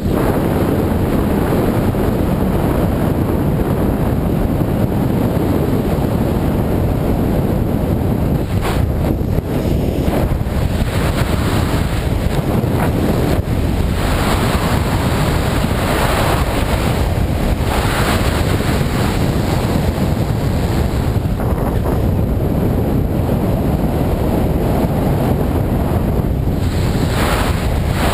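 Airflow buffeting the microphone of a camera riding on a paraglider in flight: a steady loud rushing, swelling briefly several times.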